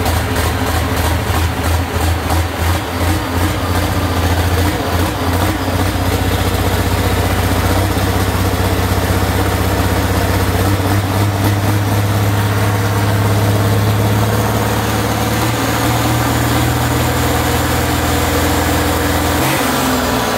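Engine idling through its exhaust while warming up after a pump repair, pulsing unevenly for the first few seconds and then settling into a steady idle, with a small shift in pitch near the end.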